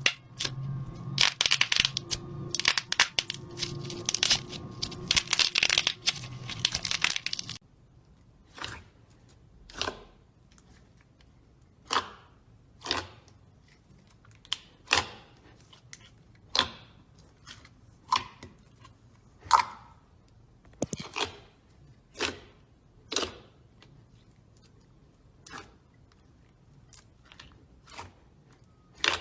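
Close-miked crunchy cutting sounds of the kind made by a knife through soap or kinetic sand: about seven seconds of dense crackling, then single crisp cuts about once a second.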